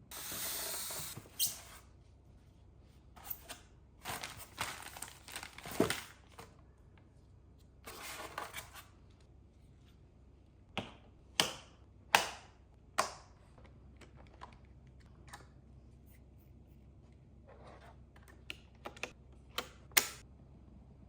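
Packaging being handled during an unboxing: plastic and paper rustling and tearing in several bursts, with a handful of sharp clicks and knocks.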